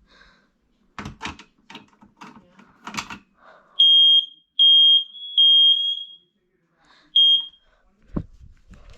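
FireX i4618AC smoke alarm sounding: three loud, high-pitched beeps in quick succession, a pause, then one more shorter beep before it stops. This is the start of the temporal-three evacuation pattern, heard during a test.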